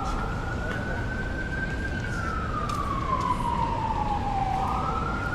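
Emergency vehicle siren in a slow wail: its pitch rises, holds high, falls over a few seconds, and starts rising again near the end.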